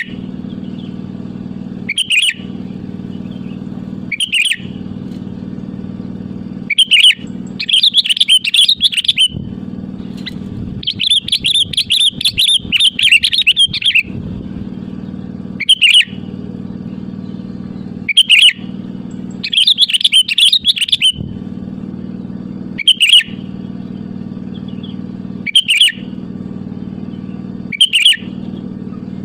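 Sooty-headed bulbul (kutilang) singing short, bright phrases every two to three seconds, with a few longer chattering runs in between. A steady low hum runs underneath.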